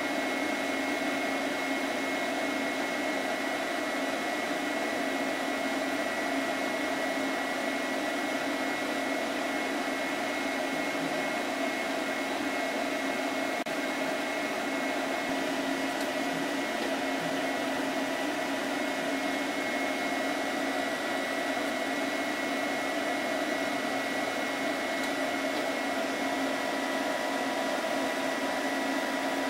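Old PC cooling fans running in the cabinet, giving a steady whir with a constant hum and a thin high tone.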